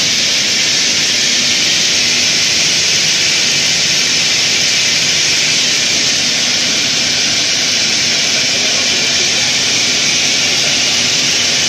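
Steady rushing whir of a running steel wire drawing line and its inverter drive cabinet, with a faint low hum underneath.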